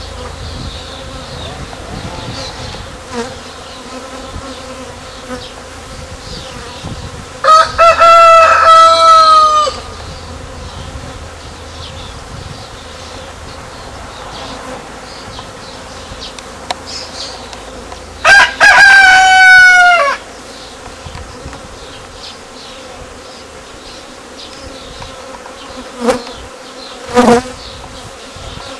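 Bees buzzing steadily around a tree crown. A rooster crows twice, about 8 and 18 seconds in; each crow lasts about two seconds, drops in pitch at its end, and is the loudest sound. Two short calls follow near the end.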